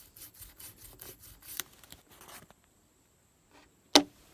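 Rubber band wrapped on a Swiss Army knife's screwdriver blade rubbing back and forth over paper as an improvised eraser, quick strokes about four a second that stop a little over halfway through. Near the end comes a single sharp knock, the loudest sound.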